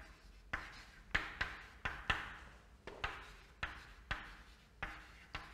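Chalk writing on a blackboard: a run of quick chalk taps and short scratchy strokes, a dozen or so, as a line of text is written.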